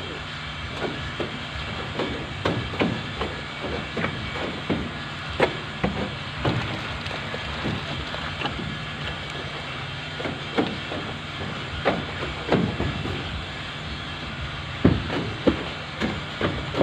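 A steady motor drone with irregular knocks and clatter from tools working the concrete pour.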